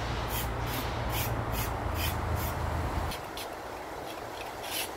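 Footsteps on a path, about two a second, over a low rumble. They stop about three seconds in, leaving a few scuffs.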